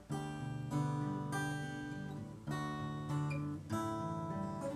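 Steel-string acoustic guitar, a Cort, strummed in chords, a fresh strum every half second or so.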